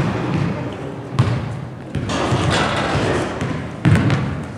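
Basketball bouncing on a gym's hardwood floor, with two heavy thuds about a second in and near the end, echoing in the large hall over low background noise.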